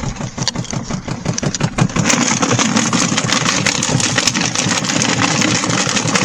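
Portable RV washing machine running loud with junk thrown into its tub, a fast dense rattle and clatter over the low throb of its motor, getting louder about two seconds in.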